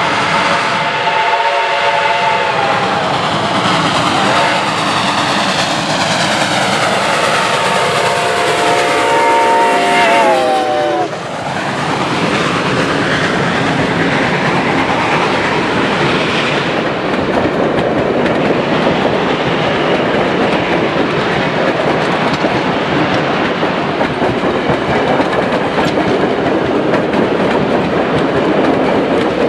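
A passing train: its horn sounds a chord of several tones twice, and the second blast drops in pitch as the train goes by about eleven seconds in. Then comes the steady noise of the cars rolling over the rails.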